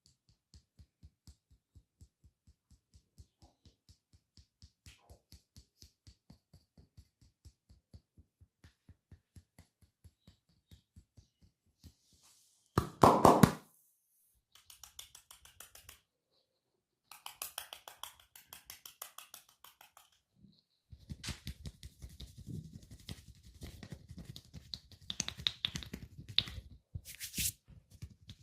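Percussive hand massage strokes on a person's body: soft, even thuds about four a second, then a brief loud burst near the middle, followed by quicker patting and slapping strokes that grow denser toward the end.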